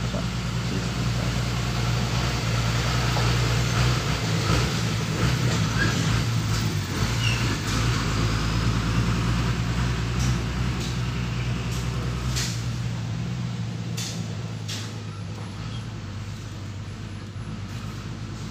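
A heavy engine running steadily with a deep hum; the deepest part of the hum drops away about twelve seconds in and the sound then slowly fades, with a few sharp clicks near the end.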